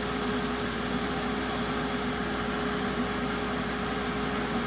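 Cooling fan of a SIP HG2300DV inverter welder, switched on but not welding, running with a steady whirr and a steady hum.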